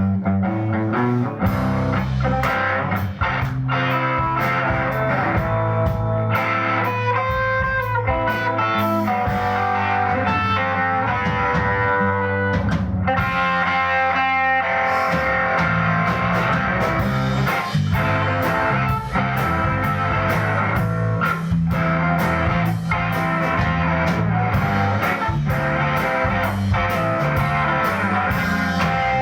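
Live rock band playing: electric guitar over bass and a drum kit, kicking in abruptly at full volume.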